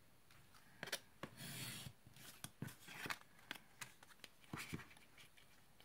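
Faint handling of card stock and a clear plastic ruler on a cutting mat: irregular light clicks and taps with short rubbing and scraping as the pieces are slid and moved.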